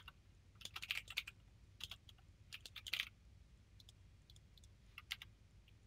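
Computer keyboard typing in short bursts of keystrokes with pauses between them, over a faint steady low hum.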